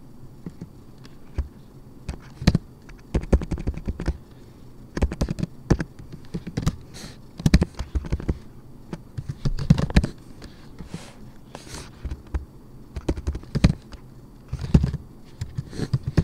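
Typing on a computer keyboard: quick runs of key presses with short pauses between them.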